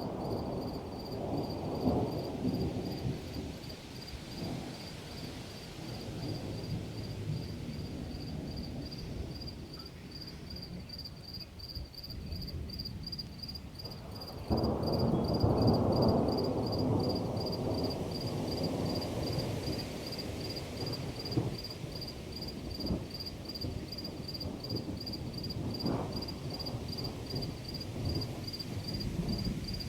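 Thunder rumbling and fading, then a fresh loud peal about halfway through that breaks in suddenly and rolls away slowly. Crickets keep up a steady pulsing chirp throughout.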